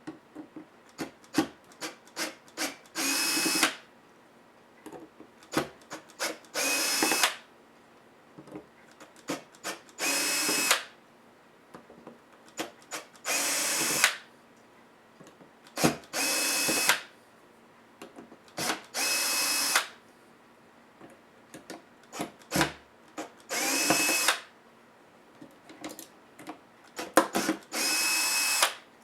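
Small electric screwdriver driving laptop case screws in eight short runs of about a second each, its motor whine rising briefly and then holding steady. Between the runs come sharp clicks and taps of the bit being set on screws and of the screws and parts being handled.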